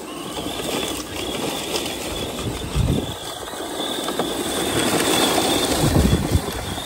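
Arrma Mojave 4S RC truck's brushless electric drivetrain whining at a high steady pitch as it drifts on loose sand and shingle, its spinning tyres spraying grit. The grinding surges about 3 seconds in and again near 6 seconds.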